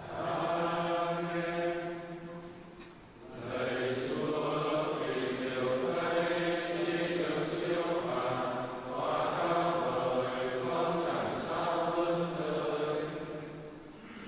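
A group of voices singing a slow liturgical chant in long, held notes, in three phrases with short pauses between them, fading out near the end.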